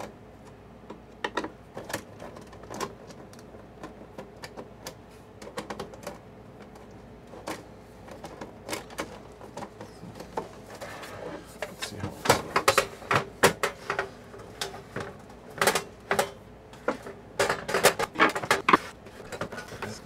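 Small screws clicking as they are backed out of a DVR's sheet-metal case with a screwdriver and set down on a wooden table. In the second half comes a run of louder metallic clicks and rattles as the sheet-metal cover is worked loose and lifted off.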